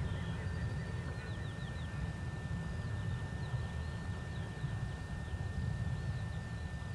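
Small birds giving short, falling chirps over a low, gusting rumble of wind on the microphone, with a steady high-pitched whine underneath.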